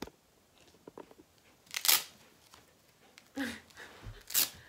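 Soft pumpkin dog costume being handled, with fabric rustling and crinkling in a few short bursts; the loudest come about two seconds in and near the end, with small clicks between.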